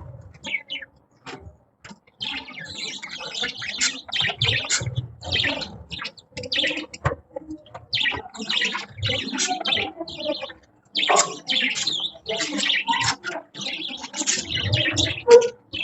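Budgerigars chirping and chattering in quick, busy runs of short calls, with a short pause about a second in and another just before the last third.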